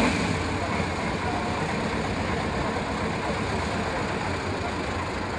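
Trial truck's engine running steadily at low revs, a low rumble with no sharp knocks or bangs.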